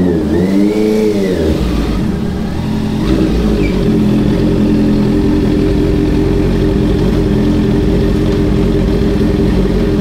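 Honda CBR650F's inline-four engine revved once in the first second or so, its pitch rising and falling, then settling into a steady idle.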